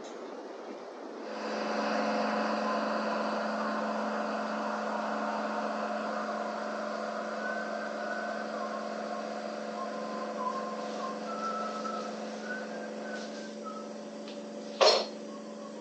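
Shop air compressor starting up about a second in, then running with a steady hum. A single short, sharp knock near the end is the loudest sound.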